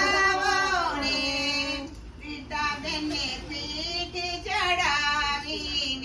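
A woman singing a Gujarati haldi (pithi) geet, the wedding song sung while turmeric paste is applied to the bride, in a high voice with long held, sliding notes.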